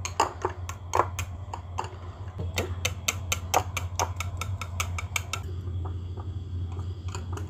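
Wire whisk beating egg batter in a small glass bowl, its wires clicking rapidly against the glass, the clicks thinning out about five seconds in. A steady low hum runs underneath.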